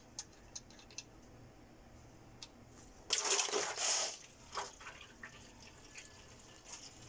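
Gear oil running out of a rear differential as it is drained: scattered faint ticks, then a brief splashing rush about three seconds in that lasts about a second.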